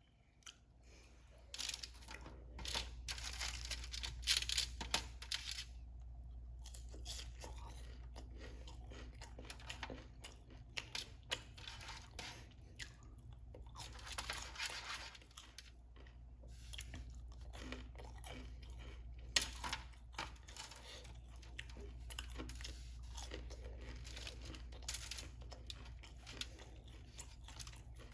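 A person eating chicken wings and fries close to the microphone: irregular crunchy bites, chewing and tearing of the food, with denser bursts of crunching a few seconds in and again about halfway through.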